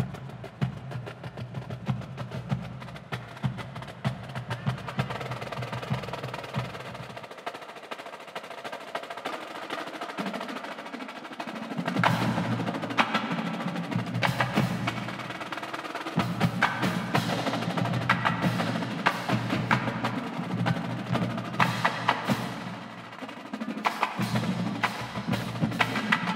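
Marching drumline playing fast, dense rhythms on snare drums, tenor drums, bass drums and crash cymbals. The low bass-drum part drops out for a few seconds about a third of the way in. The full line then comes back louder, with strong accented hits.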